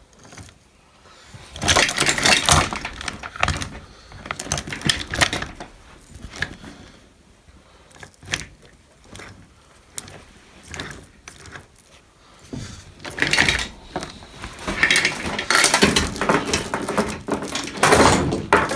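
Steel hoist chain and loose metal parts of a chain hoist clinking and rattling in irregular bursts as they are handled and turned by hand.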